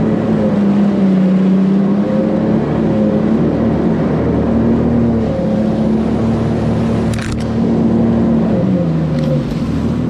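Jet ski engine running under way, its pitch wavering with the throttle and dropping lower near the end as it eases off, with a couple of brief sharp knocks or splashes.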